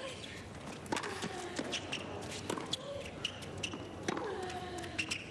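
Tennis rally on a hard court: a racket strikes the ball and the ball bounces every second or so, with tennis shoes squeaking on the court surface between shots.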